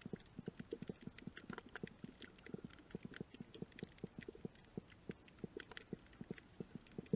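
Underwater sound on a shallow coral reef, heard through the camera's waterproof housing: a dense, irregular crackle of muffled pops with sharper clicks mixed in, several a second, with no let-up.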